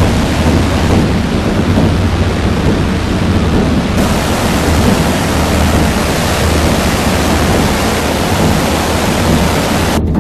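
Loud, steady rush of whitewater from Yosemite Falls crashing over boulders, cutting off just before the end.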